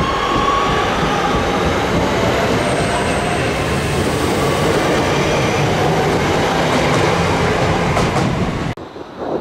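Class 323 electric multiple unit passing close at speed: a loud, steady rush of wheels on the rails and running gear, with faint high wheel squeal. The sound cuts off suddenly near the end.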